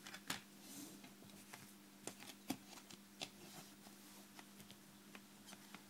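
Plastic CD jewel case being handled: scattered light clicks and taps, a few of them sharper, over a faint steady low hum.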